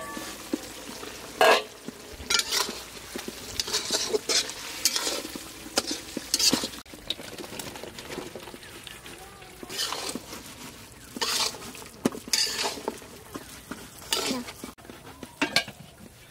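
A spoon stirring and scraping food in a pot, in about ten uneven strokes, over a steady frying sizzle.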